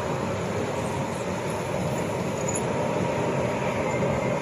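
An EP1M electric locomotive running, a steady whirring noise with a faint even hum and no distinct clanks or knocks.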